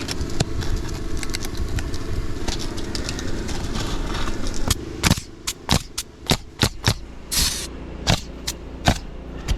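Roofing nails being driven into asphalt shingles: after a stretch of steady background noise with scattered small clicks, a quick run of about ten sharp knocks about half a second apart, with one longer rasping burst among them.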